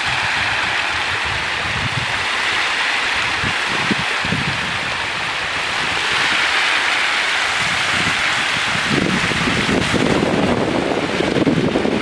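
A dense crowd of feeding catfish churning and splashing at a pond's surface: a steady hissing splash that grows fuller from about nine seconds in.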